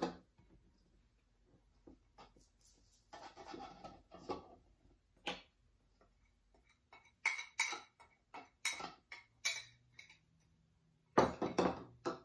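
A glass mixing bowl and a plastic funnel clinking and tapping as dried herb seasoning is poured through the funnel into a small glass spice jar. Scattered sharp clinks, a softer rustle a few seconds in, and a run of quick taps about seven to ten seconds in.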